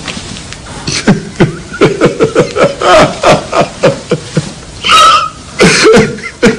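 A man sobbing loudly in comic, exaggerated fashion: a rapid run of short halting cries, each falling in pitch, with a sharp gasping wail about five seconds in.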